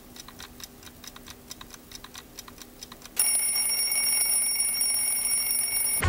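A clock ticking quietly, then about three seconds in an alarm clock goes off with a steady ring that holds.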